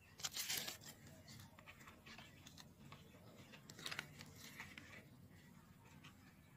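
Faint rustling and tearing of small weeds being plucked by hand, with two louder rustles, one just after the start and one about four seconds in.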